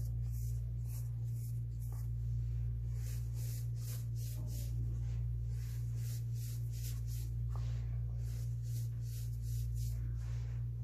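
Hands sifting and squeezing blue-dyed baking soda powder in a stainless steel bowl: soft crunching swishes of powder through the fingers, a few each second, over a steady low hum.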